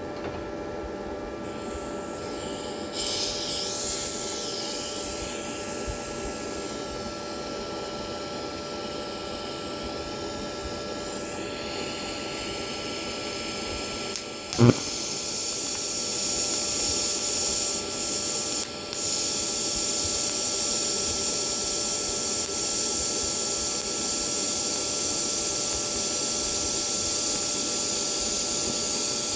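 TIG welding arc from a Toolion MIG-180 Pro inverter welder, a steady hiss over constant whining tones. There is a sharp pop about halfway through, after which the hiss is louder and steady.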